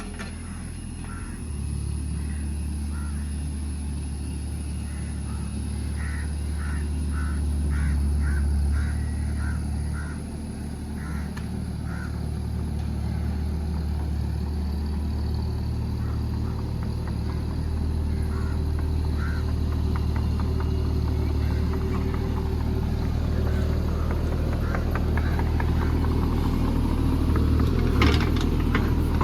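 JCB JS30 Plus mini excavator's engine running steadily under working load, with a run of short high chirps several seconds in and a burst of clattering near the end.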